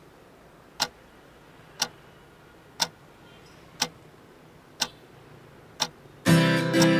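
Clock ticking, one sharp tick each second, six times. Near the end, louder strummed acoustic guitar music comes in.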